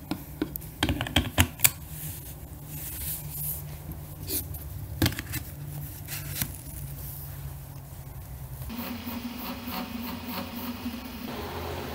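Hands handling 3D-printed plastic parts on a wooden bench: scattered clicks and taps, with rubbing and scraping as a printed enclosure is slid onto a quick-release plate. About nine seconds in, a steady hum of several tones takes over, and its pitch shifts near the end.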